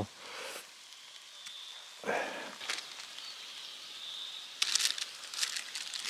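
Plastic bags rustling and crinkling as they are handled, in short bursts: one about two seconds in and a louder spell near the end.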